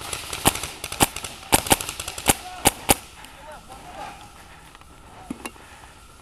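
Paintball markers firing: a string of sharp, irregularly spaced pops over the first three seconds, then the shooting stops.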